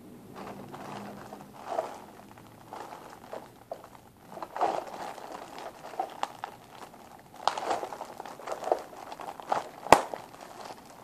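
Clear plastic bag crinkling in irregular bursts as hands handle it and pull at its opening, with one sharp click near the end.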